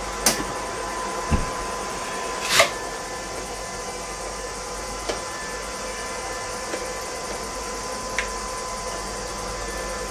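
Scattered clicks and clinks of hand tools on engine parts, the loudest about two and a half seconds in, with a low knock a little earlier, over a steady hum.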